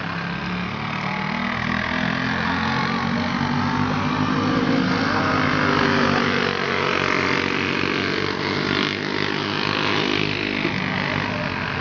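Racing go-karts with single-cylinder four-stroke clone engines running hard on a dirt oval, several engines at once with shifting pitch. They grow louder as two karts pass close about six seconds in, then ease off as the pack moves away.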